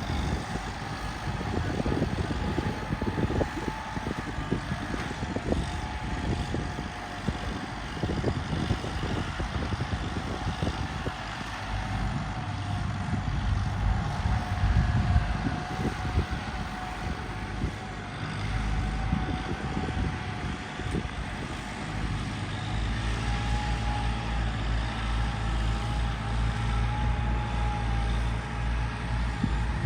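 Tractor engine running while levelling a rice paddy, with a faint steady whine above it. The low engine sound is uneven, with knocks and rattles in the first half, and steadies into an even drone about two-thirds of the way through.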